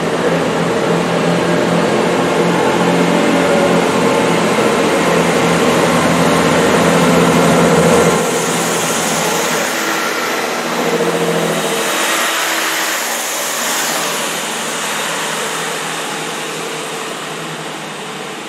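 Diesel multiple-unit train pulling along the platform under power, its engine hum building to a peak about eight seconds in. The engine note then drops away, leaving wheel and rail noise from the passing carriages, which slowly fades.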